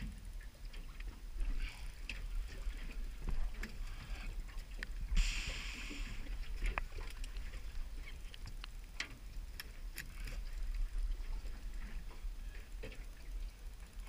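Ambient sound aboard a small open fishing boat at sea: a steady low rumble with scattered light clicks and knocks, and a brief rush of hiss about five seconds in.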